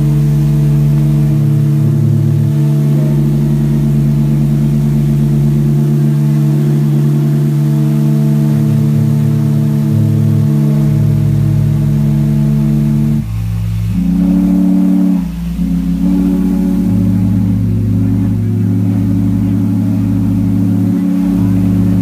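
Several steam whistles blowing at once in a loud, steady chord. About 13 seconds in the chord changes to different pitches, with two brief breaks.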